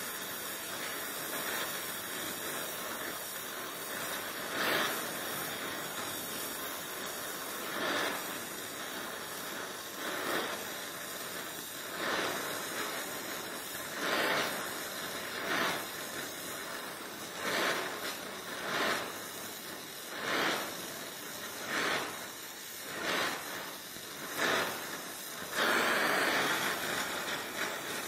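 Donmet 132A micro oxy-acetylene welding torch flame hissing steadily while welding a steel pipe with filler wire. Short louder surges in the hiss come every second or two, more often in the second half.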